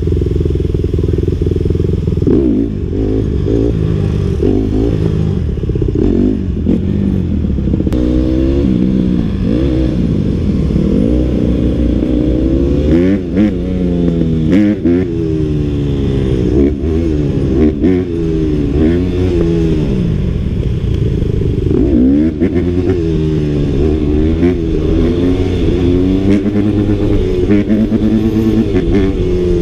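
Dirt bike engine heard close up from a camera mounted on the bike, revving up and falling back again and again as the rider accelerates and shifts while riding.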